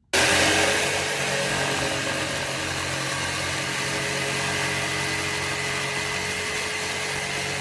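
Corded Black+Decker jigsaw running and cutting through a pine board, starting suddenly and then holding a steady motor hum with the rasp of the reciprocating blade.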